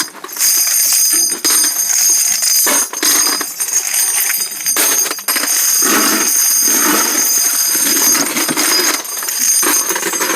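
Spent brass cartridge casings clinking and jingling in irregular bursts as they are shoved and scooped. A steady high-pitched whine runs underneath.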